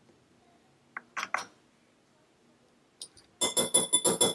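A metal measuring spoon clinks rapidly against a glass mixing bowl, about nine quick, ringing taps near the end, knocking baking powder off the spoon. A few softer clicks of the spoon come about a second in.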